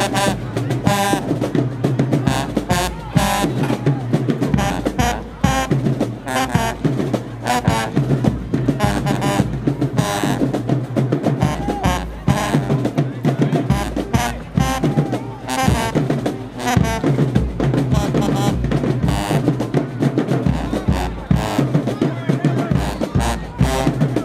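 Marching band playing, with brass over a drumline of bass drums and snare drums keeping a steady beat.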